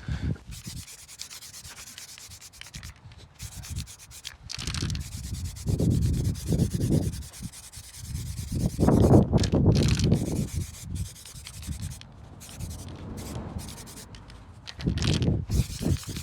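Irregular rubbing and scraping as stone chip coating is worked onto a car's rear trailing arm, with louder stretches coming and going.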